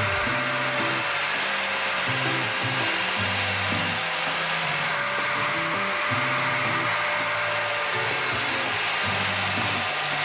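Biscuit jointer with a dust-extraction hose running steadily while it cuts the slots in cabinet-door stiles and rails: a continuous motor rush with a whine that sags slightly in pitch a couple of times.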